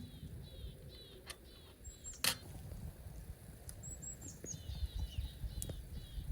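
Small birds chirping in quick series of short falling notes, with a few thin high whistles. A sharp crack comes a little over two seconds in, with lighter clicks scattered around it, over a low irregular rumble.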